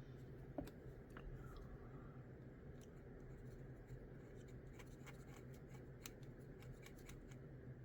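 Faint scattered clicks and taps of small plastic model-kit parts being handled and fitted together, over a low steady hum.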